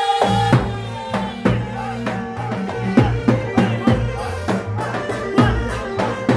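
Live Arabic party band music: a singer's long held note ends about half a second in, then drums keep a steady, strong beat.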